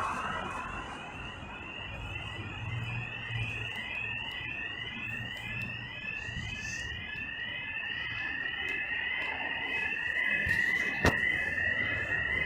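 Electronic fire alarm sounder going off inside a building, a fast rising sweep tone repeating about three times a second. A single sharp click sounds near the end.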